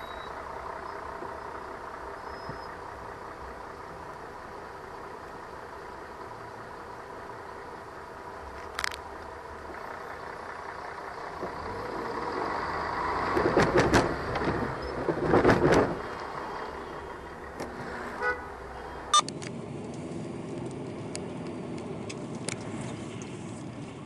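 Car interior and street-traffic hum picked up by a dashcam while queued in traffic, with two louder, rough bursts about 13 and 15 seconds in and a few sharp clicks after them; the background hum changes abruptly about 19 seconds in.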